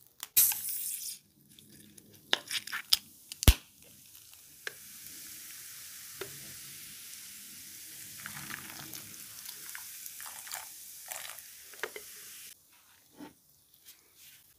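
Beer poured from a can over a steak in a ceramic baking dish, with a steady fizzing hiss as it foams up that lasts about eight seconds and cuts off suddenly. Before it come a short loud hiss, a few clicks and one sharp knock.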